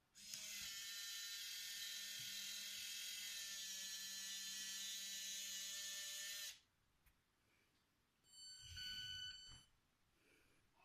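Small electric motor of a Siku Control RC model tractor whining steadily for about six seconds, then stopping suddenly. A shorter tone sounds about two seconds later.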